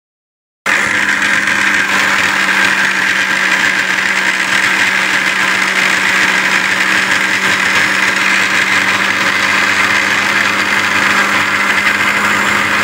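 Silver Crest SC-1589 countertop blender switched on, its motor starting abruptly about half a second in and running steadily with a constant hum, puréeing boiled raw mango into a paste.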